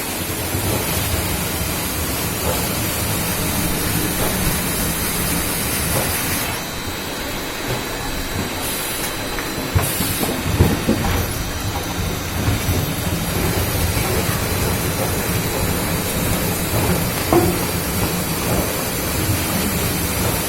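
Wood-shaving machine for plywood veneer running steadily, a dense continuous noise with a few short knocks.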